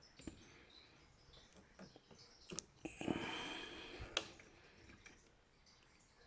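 Faint, scattered small clicks of hands handling the CPU and its plastic packaging, with a rustle lasting about a second near the middle that ends in a sharper click.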